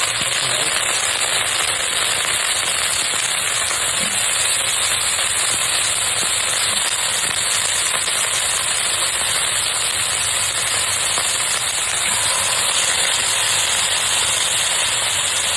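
Loud, steady sizzling and crackling of food frying in hot oil, cutting in suddenly and cutting off suddenly near the end.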